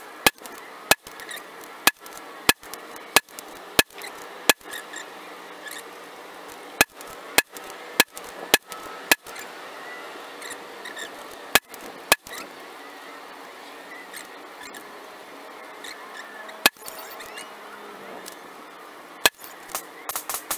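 A string of sharp rifle shots at uneven spacing, some in quick succession and others several seconds apart, with a faint steady background between them.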